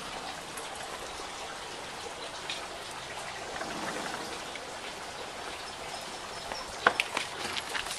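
Steady trickling and splashing of pool water, with a quick run of sharp clicks and knocks about seven seconds in.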